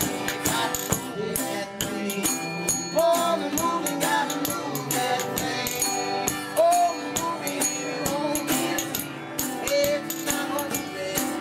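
Acoustic folk-blues band playing: a pair of spoons rattling out rapid clicking rhythms over two strummed and picked acoustic guitars, with a neck-rack harmonica playing short bending notes.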